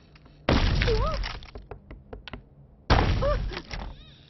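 Two sudden heavy thuds about two and a half seconds apart, each fading out over about a second, with a brief wavering whine inside each.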